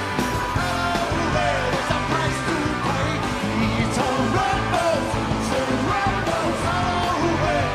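Live rock band playing: electric guitars and drums driving steadily under loud sung vocals.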